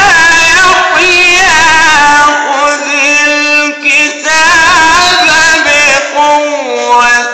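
A man's strong voice reciting the Quran in melodic tajwid style, holding long ornamented notes that waver up and down, then stepping lower near the end.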